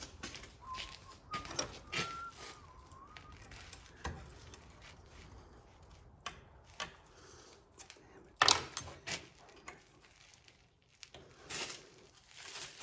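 Metal parts and tools handled during hand assembly on a milling machine: scattered light clicks, rattles and knocks, with a sharper clatter about eight and a half seconds in and another near the end.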